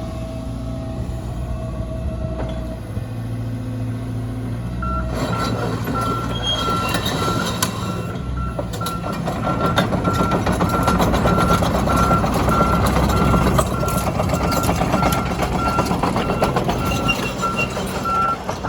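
2013 Volvo EC140 excavator's diesel engine running steadily, then about five seconds in it goes under load with a louder mechanical din and frequent clanks. At the same moment a travel alarm starts beeping, about one and a half beeps a second.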